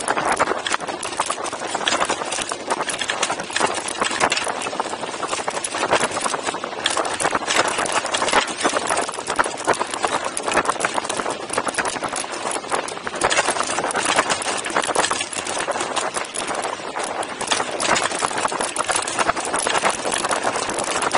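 Mountain bike rolling over a stony dirt track: tyres crunching on gravel and the frame and camera mount rattling in a dense, steady stream of clicks.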